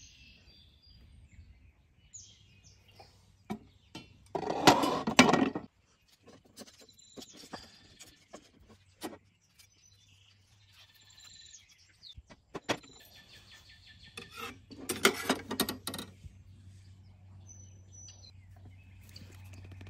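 Birds chirping outdoors over close handling sounds of making a pie-iron sandwich, such as small clicks, taps and a knife spreading on bread. Two louder bursts of scraping or rustling come about five and fifteen seconds in.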